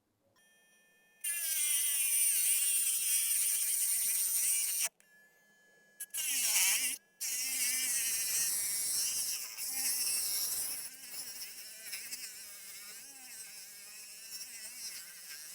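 A small electric motor buzzing at a high, wavering pitch. It starts a little over a second in, cuts out near five seconds, returns briefly around six seconds, then runs on and grows weaker over the last few seconds.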